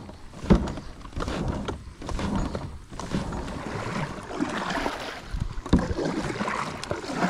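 A paddle stroking through pond water as a small one-person plastic boat is paddled along: irregular swishes and splashes. There are a few sharp knocks, the loudest about half a second in and another near 6 s.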